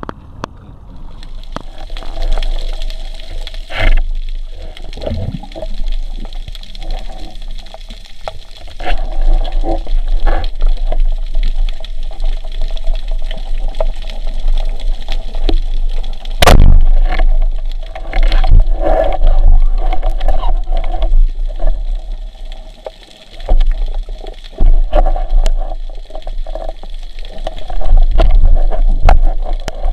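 Small boat under way: water rushing and splashing against the hull over a steady engine hum, with occasional knocks.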